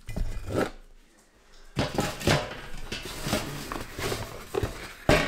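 Things being moved about on a kitchen countertop: a glass jar lifted away and a plastic cutting board slid, giving a run of irregular scrapes and knocks. The sharpest knock comes about five seconds in.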